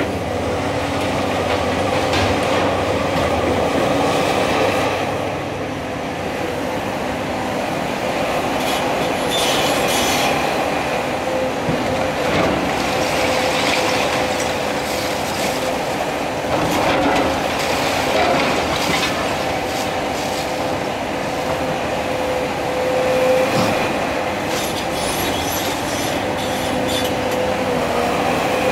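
Cat 336 Next Generation hydraulic excavator working: its diesel engine and hydraulics run steadily with a constant whine, while its steel tracks squeal and clank as it travels and its demolition grab crunches and scrapes through rubble in several clattering stretches.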